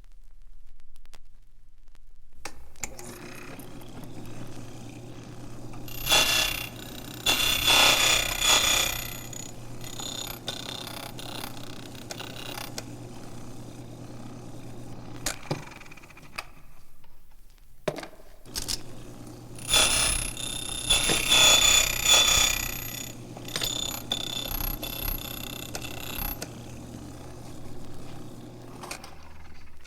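A bell ringing in two bursts of about three seconds each, roughly thirteen seconds apart, over a steady low hum and hiss.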